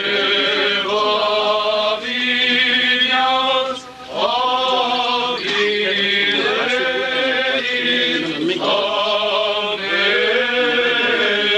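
Men's voices chanting an Armenian church hymn in long held phrases, over a steady low drone.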